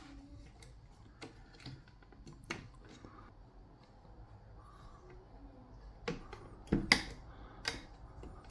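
Scattered light clicks and taps of computer hardware being handled, with a few louder knocks about seven seconds in.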